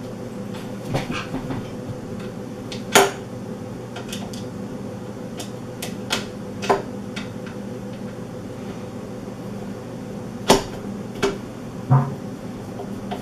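Scattered clicks and knocks of a hand screwdriver and plastic parts as a pedal is screwed onto a Cubii Jr under-desk elliptical. The sharpest knocks come about three seconds in and twice near the end, over a steady hum.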